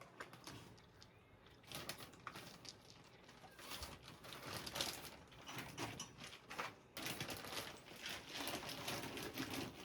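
Plastic cat-food bag crinkling and dry kibble rattling, an irregular run of small clicks and rustles as food is poured out.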